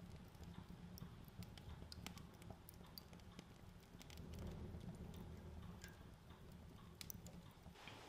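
Near silence: quiet room tone with faint, scattered ticks and clicks.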